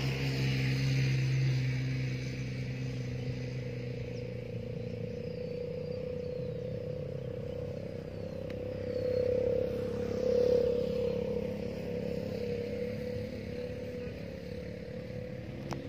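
A motor vehicle's engine drones and fades away over the first two seconds, leaving a steady drone that swells about ten seconds in. A few faint high chirps come through around five to eight seconds in.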